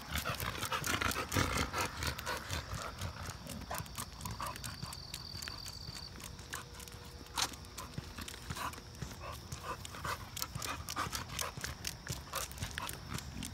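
Footsteps of a person and an Alapaha Blue Blood Bulldog on a leash walking on a concrete sidewalk: an irregular patter of steps and clicks, with one sharper knock about seven seconds in.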